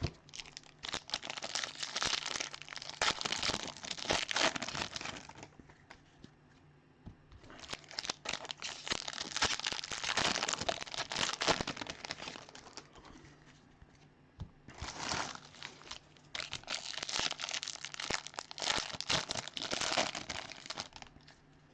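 Foil wrappers of Bowman Draft baseball card packs being torn open and crinkled in the hands, in several long stretches of crackling with short pauses between.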